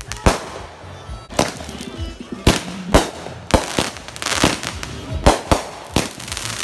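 Aerial fireworks bursting overhead: a rapid, irregular series of sharp bangs, about a dozen, with crackling in between.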